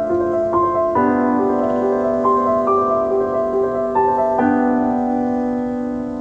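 Gentle keyboard music, a slow melody over held chords that change about a second in and again past four seconds, starting to fade out near the end.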